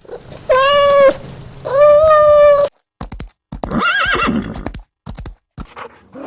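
Animal calls: two long steady cries, then a horse whinnying with a wavering pitch among a run of short knocks like hoof clip-clops.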